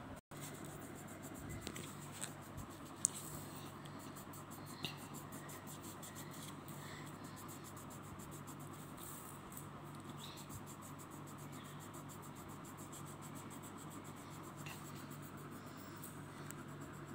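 Colored pencil scratching softly on paper as a child colors in a picture, faint and continuous, over a steady low hum. A few light knocks in the first few seconds.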